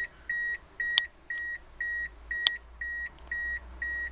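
A car's warning chime beeping steadily, a short high electronic tone about twice a second, with a sharp click twice.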